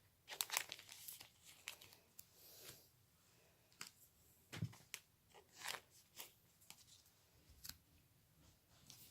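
Faint rustling and crinkling of Pokémon booster-pack wrappers and trading cards being handled, in short scattered bursts with a few light clicks.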